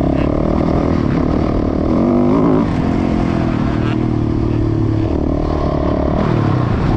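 Dirt bike engine running at speed under the rider; the revs climb about two seconds in, then hold steady and ease off near the end.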